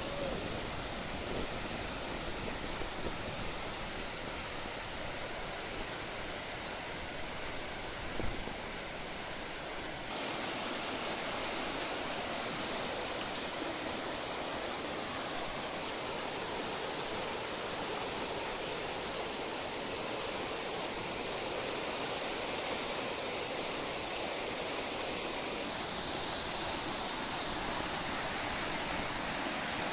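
Whitewater river rapids rushing, a steady churn of water with no break. About ten seconds in, the rush turns suddenly a little louder and hissier.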